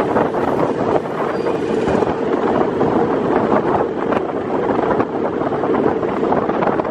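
Steady vehicle running noise with wind on the microphone.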